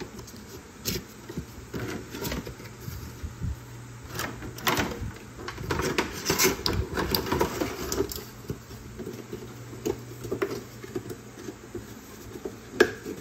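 Cardboard toy box and plastic packaging being handled: rustling and crinkling with scattered taps and knocks, busiest in the middle, and one sharp knock near the end.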